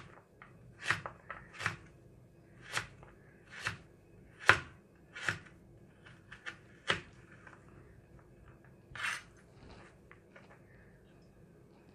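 Santoku knife slicing fresh ginger on a thin plastic cutting board: about a dozen separate sharp knocks as the blade hits the board, stopping about seven seconds in, with one more cut near nine seconds and faint handling sounds after.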